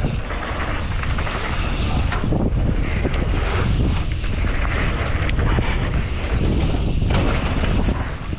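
Wind buffeting the microphone of a mountain biker's camera on the move: a steady, loud low rumble with a rushing hiss over it.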